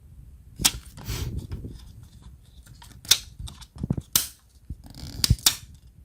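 Sharp plastic clicks and snaps, several of them, with scraping and rustling between, from handling the casing and internal parts of an Asus TUF FX506L laptop.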